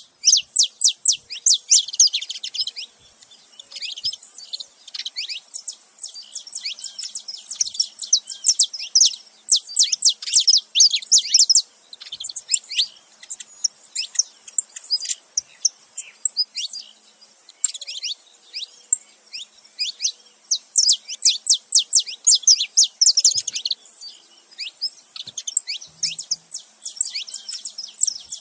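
A pair of saffron finches, male and female, chirping in fast runs of sharp, high notes that each sweep downward, coming in bursts with short pauses between them.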